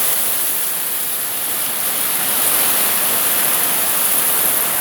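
Heavy rain coming down steadily: an even, unbroken hiss.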